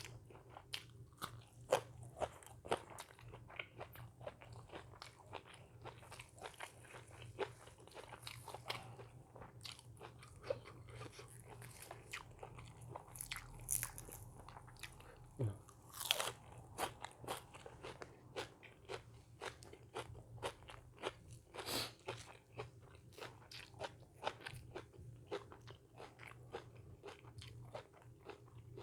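A person eating eggplant dip with fresh vegetables close to the microphone: irregular crunchy bites and chewing, with a few louder crunches among many small ones. A low steady hum runs underneath.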